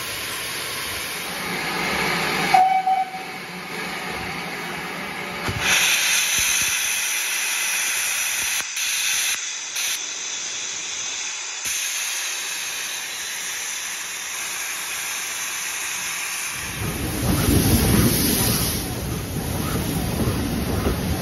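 Steam locomotive at a platform, with a short whistle note about two and a half seconds in, then a steady hiss of steam being blown off. Near the end a low rumble takes over as steam locomotive 9351 rolls in alongside with its coaches.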